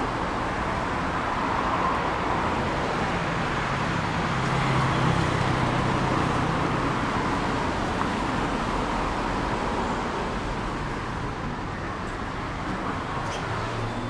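Road traffic on the adjacent street: a steady wash of car tyre and engine noise that swells a little about halfway through as vehicles pass.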